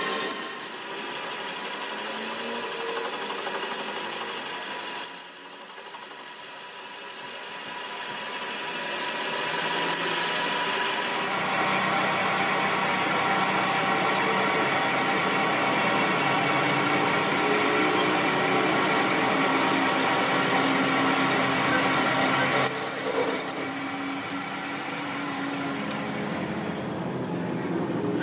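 Metal lathe turning a steel axle shaft, the cutting tool squealing against the spinning steel over the steady run of the machine. The sound grows steadier and louder about a third of the way in and drops noticeably near the end.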